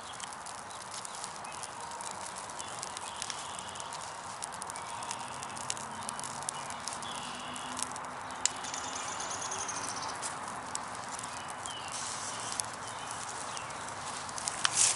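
Small twig-and-birch-bark campfire burning, crackling with scattered sharp pops over a steady hiss, while birds call with short high notes.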